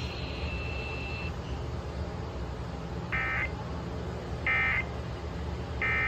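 Emergency Alert System end-of-message data tones playing through a Sangean portable radio's speaker: three short identical bursts of warbling digital code about 1.4 s apart, over a steady low hum. They signal the close of the Required Monthly Test.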